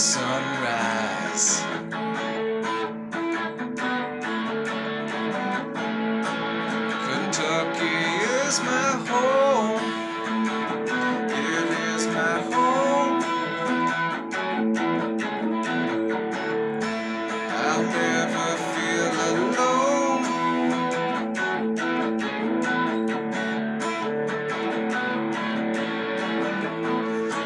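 Solid-body electric guitar playing unaccompanied: picked and strummed chords mixed with lead lines, with several bent notes around a third of the way in and again about two-thirds through.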